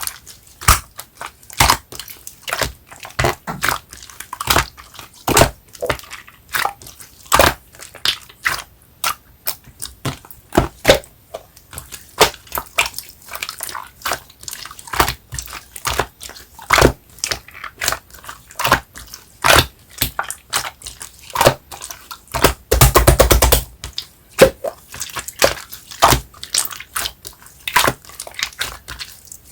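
Clear slime with flower miniature toppings being squished and poked by hand, giving irregular wet clicks and pops, with a quick run of pops for about a second about three quarters of the way through.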